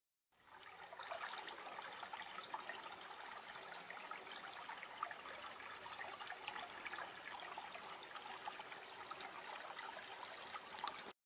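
Small woodland creek trickling through a jam of sticks and fallen logs: a faint, even, fine splashing that fades in at the start and stops abruptly near the end.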